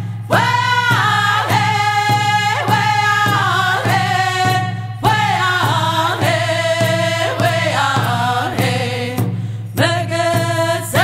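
Music with singing: a sung melody over a steady low accompaniment.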